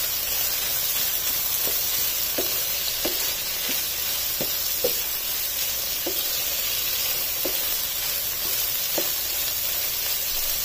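Beef mince and frozen peas sizzling in a nonstick frying pan while a wooden spatula stirs them. The spatula makes short knocks against the pan about once a second over the steady sizzle.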